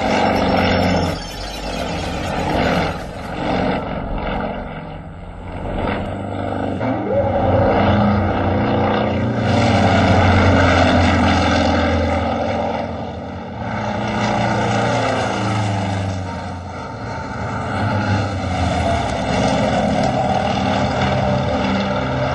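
Propeller-driven aerobatic planes' piston engines droning as they fly past, the engine note and loudness rising and falling with each pass.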